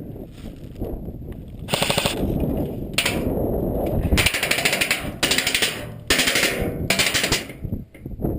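Airsoft guns firing on full auto: about six short rapid bursts of clicking shots, with low wind rumble on the microphone in between.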